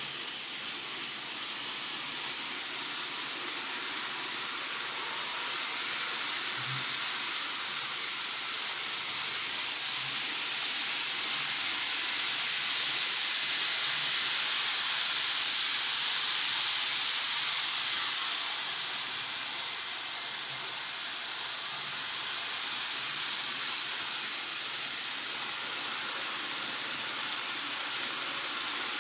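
N-gauge model trains running on the layout track: a steady rushing hiss of motors and wheels on rail. It swells louder for several seconds midway and drops back around two-thirds of the way through.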